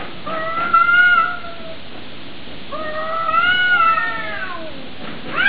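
Domestic cat yowling at another cat in a standoff: two long, wavering yowls, the second about two seconds long.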